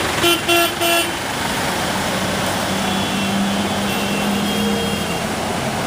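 A vehicle horn gives three quick toots about a second in, over steady street traffic noise; after that a vehicle's engine hums steadily for a few seconds as a truck passes through the flooded road.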